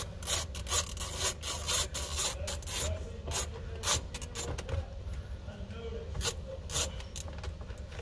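Irregular clicks and scraping of a hand tool working a Torx screw loose under the plastic lower steering-column cover of a 2012 VW Jetta, with a steady low hum beneath.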